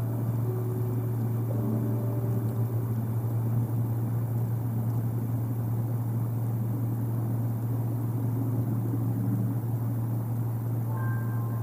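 A steady low hum that stays at one pitch and one level throughout, with a few faint short tones near the start and again near the end.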